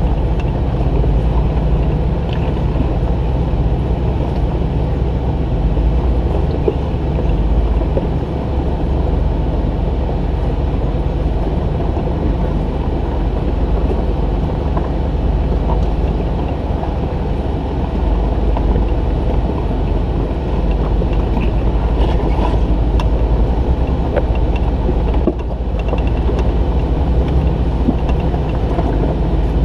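Jeep driving on an off-road trail: a steady, muffled drone of engine and running gear, mostly low in pitch. It dips briefly about 25 seconds in and then carries on.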